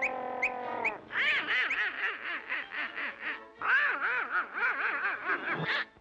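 Donald Duck's quacking cartoon voice jabbering rapidly in short bursts. It follows about a second of a steady, slowly falling tone with even ticks about two and a half times a second.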